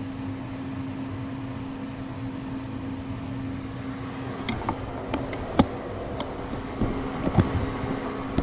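Steady hum with a constant low tone over a fan-like hiss. From about halfway through come a run of light clicks and knocks, the loudest a little past the middle: handling noise close to the microphone.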